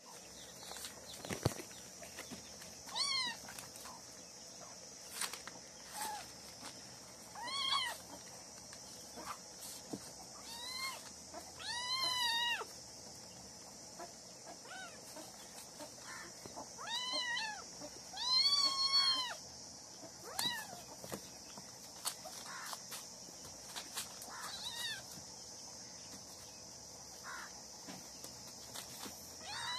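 Young kitten meowing repeatedly while a baby monkey wrestles it: about ten short, arching calls every few seconds, a few of them loud and drawn out, with a few light knocks in between.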